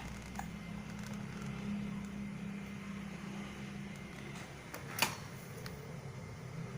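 Steady low machine hum, with one brief sharp sound about five seconds in.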